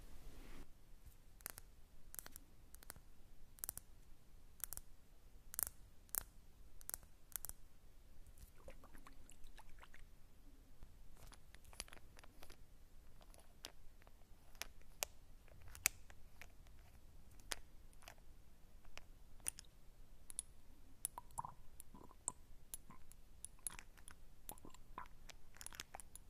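Close-miked ASMR mouth sounds imitating a sound: quiet, irregular clicks and crackles, thick in the first few seconds and sparser after, with one louder click about halfway through.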